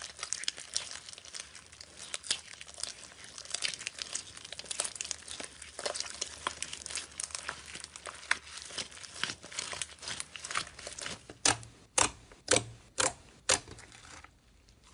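Slime being squeezed and pressed by hand, crackling densely. Near the end it gives way to a run of sharper, louder pops, about two a second.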